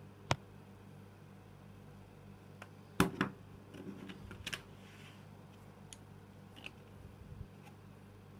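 Plastic CD jewel case being handled and opened. A single click comes just after the start, then a sharp double snap about three seconds in as the case opens. Light plastic clicks and rattles follow as the disc is worked off the centre hub, with a few soft ticks after.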